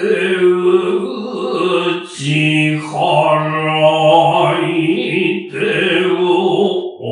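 Noh chanting (utai): a voice chanting the text in long, drawn-out held notes, with short breaks for breath about two and three seconds in.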